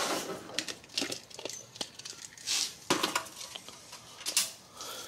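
Metallic clinks, taps and clatter as a forged steel billet and tools are handled on a workbench, with a couple of brief swishing scrapes.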